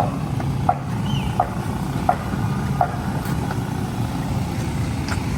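Steady low rumble of engines and machinery, with a row of short ticks about 0.7 seconds apart over the first three seconds and a brief high chirp about a second in.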